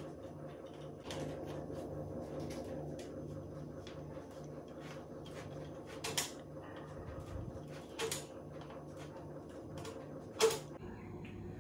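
Screwdriver fitting the small door of a wooden birdcage: scattered light clicks and scrapes of metal on wood, with three sharper knocks about six, eight and ten seconds in.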